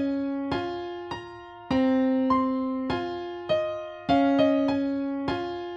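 Solo piano playing a slow, gentle melody, each note struck and left to ring and fade before the next.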